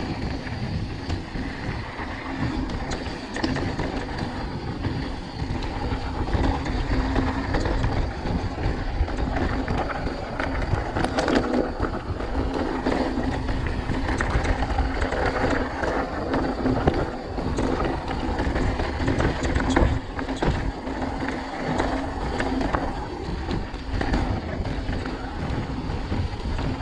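Mountain bike rolling fast down a dirt and gravel track: tyres crunching over loose stones and the bike rattling with many small clicks, over a steady rumble of wind buffeting the microphone.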